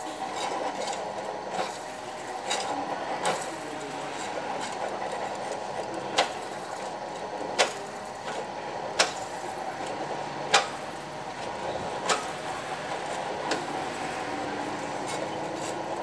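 Electric drill running steadily while its bit bores through a metal plate, with sharp clicks at irregular intervals of a second or so.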